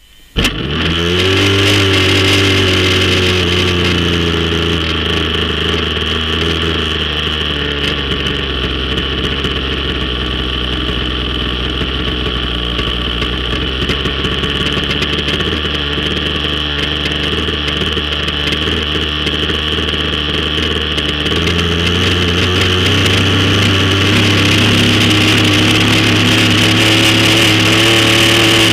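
Small model engine on a radio-controlled boat catching from a handheld electric starter about half a second in, then running steadily at idle. Its pitch steps up slightly about two-thirds through and it grows a little louder toward the end.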